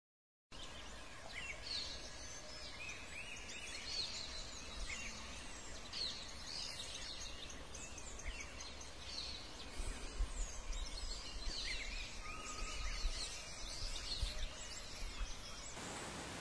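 Several forest birds calling over a steady hiss of forest background: many short, sweeping high chirps and whistles, one every second or so. Near the end the calls stop and only a flatter hiss remains.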